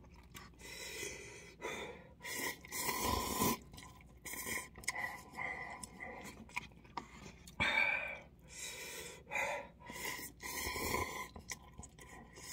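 Slurping and chewing cup ramen noodles, with several noisy slurps and huffs of breath and quieter chewing between.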